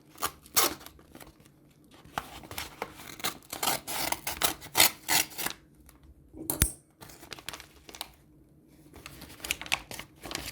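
A knife cutting open a parcel's packaging: an irregular run of short slicing and tearing strokes, with a single sharp click a little past the middle.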